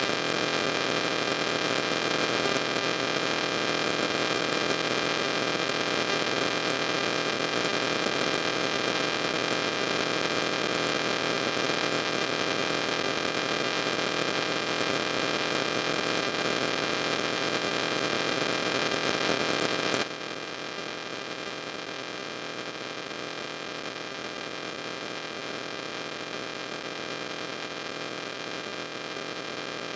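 Steady electrical hum and hiss with several fixed whining tones, no speech; it drops noticeably in level about two-thirds of the way through and continues.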